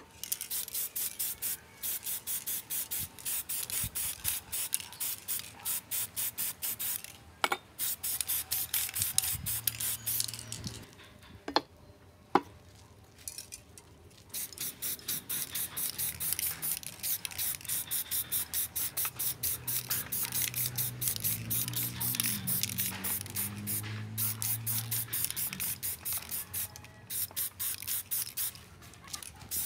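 Rapid back-and-forth hand rubbing strokes, about four or five a second, like scrubbing or hand-sanding a part. There is a break of about two seconds around the middle, and a few sharp clicks before it.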